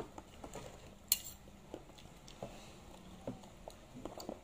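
Faint, scattered clicks and taps of a spoon against an ice cream container, with one sharper click about a second in.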